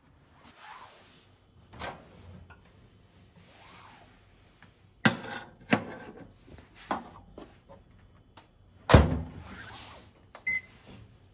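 Countertop microwave oven being loaded: a few sharp clicks and knocks as the door is opened and a plate is set inside. The door then shuts with a loud thunk about nine seconds in, followed by a brief high beep.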